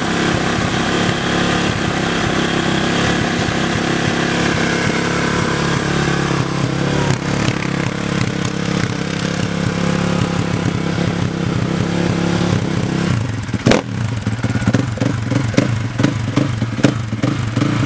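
Brand-new 2017 Kawasaki KX450F's single-cylinder four-stroke engine running at a steady idle. About thirteen seconds in there is a sharp knock, and after it the engine is blipped with a quick run of short throttle revs, gentle as for breaking in a new engine.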